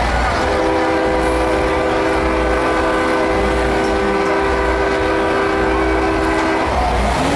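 Train-style air horn on a truck blowing one long, steady chord of several tones for about six seconds, then cutting off near the end.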